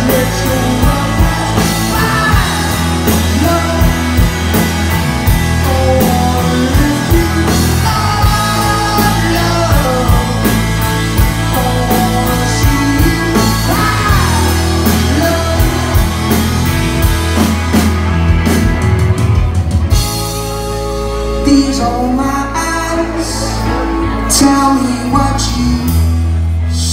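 Live rock band playing a song with singing, electric guitar, heavy bass and drums. The drums thin out about eighteen seconds in for a lighter passage, and the full band comes back in near the end.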